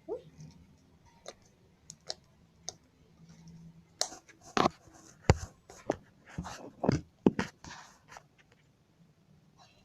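Homemade glue slime being squeezed and worked in the hands, making sharp clicking and popping sounds: a few scattered clicks at first, then a quick run of loud pops and cracks about four seconds in that dies away near the end.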